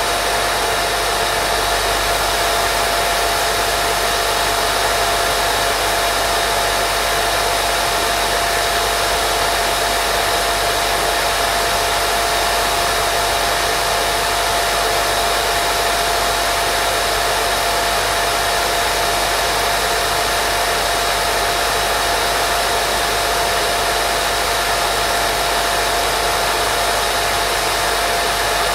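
Steady white noise for baby sleep, an even hiss that never changes, with a faint steady hum tone running through it.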